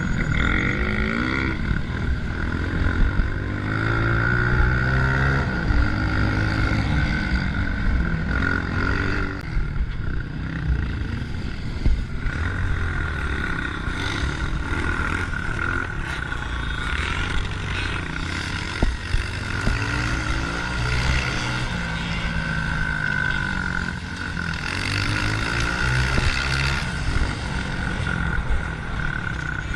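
Honda CRF125F dirt bike's small single-cylinder four-stroke engine running under load, its note rising and falling again and again as the throttle is opened and closed. A steady high whine runs through it.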